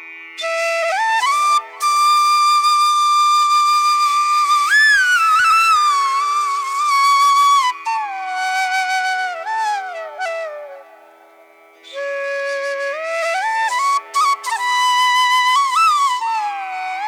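Background music: a slow flute melody with sliding, bending notes over a steady drone, pausing briefly about two-thirds of the way through.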